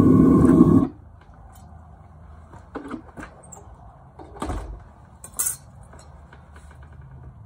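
A loud steady roar cuts off abruptly about a second in. After that come a few light metallic clinks and knocks against quiet background.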